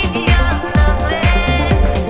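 Electronic dance music: a steady kick drum thumping about three times a second, hi-hat ticks between the beats, and a high melodic line held and sliding above.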